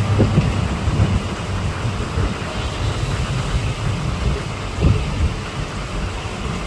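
Aquarium air stones bubbling: a steady rushing, bubbling water noise with a heavy low rumble and a couple of brief swooshes.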